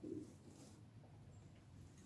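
Near silence: room tone, with one faint, brief low hum right at the start.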